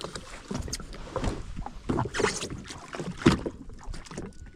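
Water slapping and splashing against the hull of a drifting jet ski, with scattered knocks and rattles.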